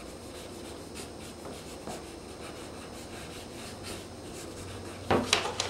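Pencil drawing on animation paper: faint, steady scratching of the lead, with louder, sharper strokes about five seconds in.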